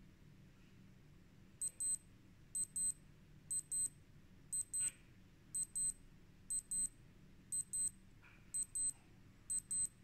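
Casio G-Shock G-MS watch alarm beeping from its piezo buzzer: high-pitched double beeps, one pair about every second, starting a second and a half in.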